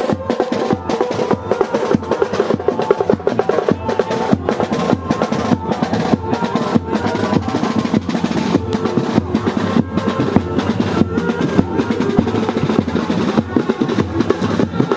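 Drum-led music with a melody over it and no singing: a steady beat of strong strokes about twice a second, with quicker drumming filling in between.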